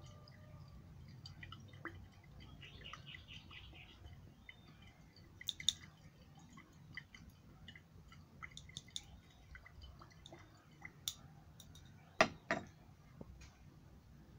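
Glass conical flask being swirled by hand during a titration: faint clinks and small ticks from the glassware, with a short run of rapid ticks about three seconds in. Two sharper glass knocks near the end as the flask is set down on the tile.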